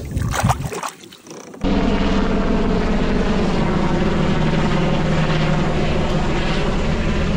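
Helicopter flying right overhead: loud, steady rotor and engine noise that cuts in suddenly about a second and a half in and cuts off suddenly at the end.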